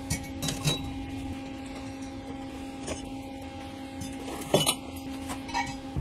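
Steel bar stock and tube pieces clinking as they are handled and set down: a handful of separate sharp metallic clinks, the loudest a little past halfway, over a steady low hum.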